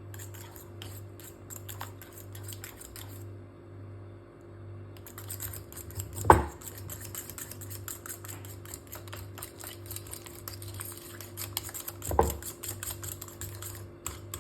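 Rapid, irregular light clicking and tapping, several clicks a second, with a short pause about four seconds in. Two louder thumps come about six and twelve seconds in.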